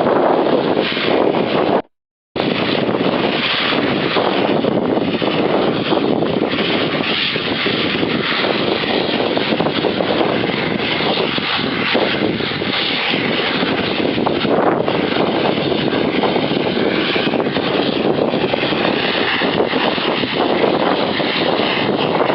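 Airplane engines running steadily, with a brief cut to silence about two seconds in.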